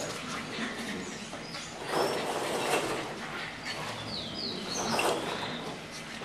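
English bulldog puppies at play: short, high-pitched squeaks, a cluster of them just before the end, over scuffling on a tiled floor.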